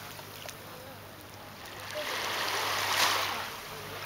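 Small waves washing and lapping on a pebbly shore, swelling once about two to three seconds in, over a faint steady low hum.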